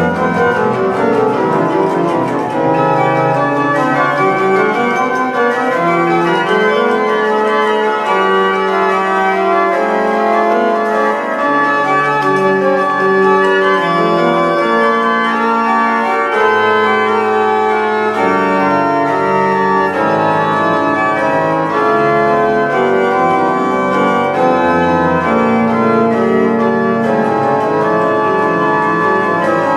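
Organ music: slow sustained chords over a moving bass line, at a steady level.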